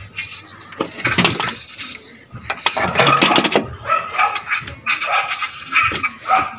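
Repeated calls from an animal: one about a second in, the loudest about three seconds in, then several more close together through the second half.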